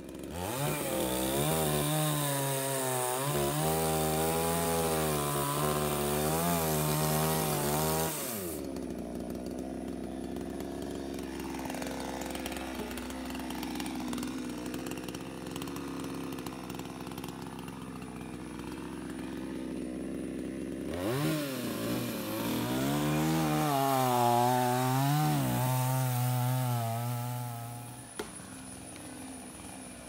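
Two-stroke chainsaw cutting into a big tree trunk at full throttle, its pitch wavering under load. About 8 seconds in it drops to idle, and it idles for some 12 seconds. It revs up hard again for about 7 seconds and falls back to idle near the end.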